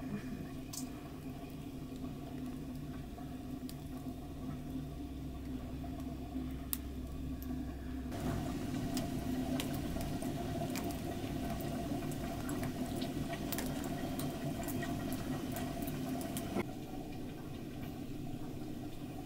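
Wood fire crackling and popping in a sheet-metal stove, under a steady hiss and bubble from a large pot simmering on top. The pops come thickest through the middle stretch.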